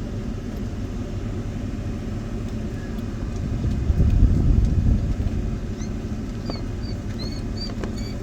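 Low, steady outdoor rumble that swells for about a second midway, with a few short, high chirps near the end.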